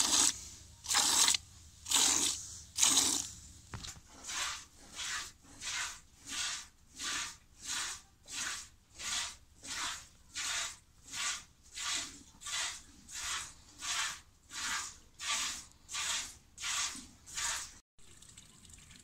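Hand milking: rhythmic squirts of milk from the teats hitting a bucket, a short hissing spurt with each pull. About one squirt a second at first, then quicker, nearly two a second, until they stop suddenly near the end.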